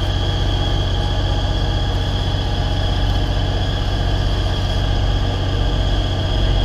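Car running on the road: a steady low engine drone with rapid pulsing, road noise, and a thin steady high tone above it.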